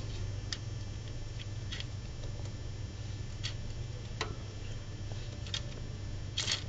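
Scattered small clicks and scratches from a Syrian hamster moving about, over a steady low hum; the loudest click comes near the end.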